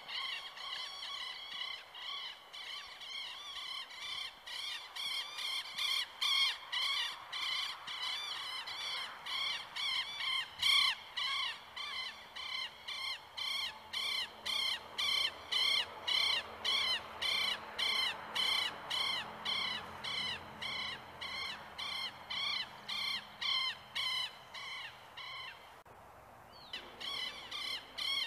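A bird calling in a fast, regular series of short calls, about two a second, with a brief break near the end, over the faint steady rush of a shallow river running over stones.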